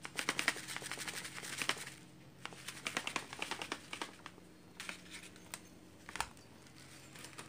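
Bursts of light rustling and quick clicking, with a few separate ticks in the second half, over a faint steady low hum.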